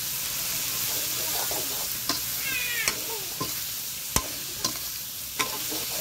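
Meat and chilli stir-frying in a large wok: a steady sizzle, with a metal ladle scraping through the food and clinking sharply against the wok several times.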